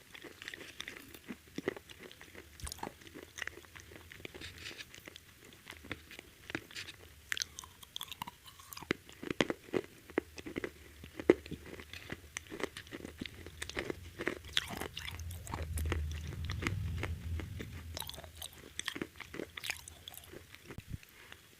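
Close-up crunching and chewing of crispy KFC fried chicken: irregular sharp crunches as the breaded coating is bitten and chewed.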